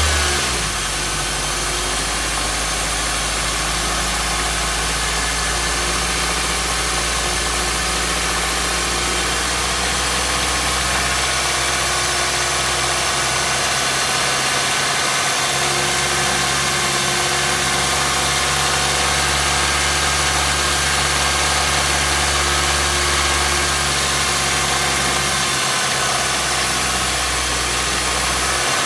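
2015 Nissan Versa Note's HR16DE 1.6-litre four-cylinder engine running at a steady speed, its hum dropping slightly in pitch just as it begins. It is being run for a knock test, checking for the knocking at certain rpm that this engine is known for.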